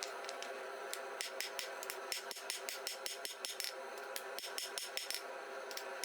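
Hand hammer striking hot damascus steel on the anvil, a quick run of blows about four a second starting about a second in, over a steady hum.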